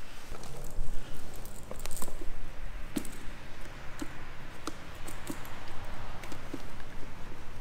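Firefighter's turnout gear and SCBA face mask being handled: rustling of heavy coat fabric and hood with scattered clicks and knocks of mask and harness parts.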